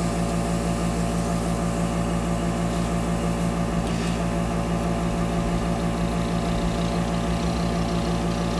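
Small airbrush compressor running steadily with a constant low hum, powering the airbrush during a test spray of diluted black paint.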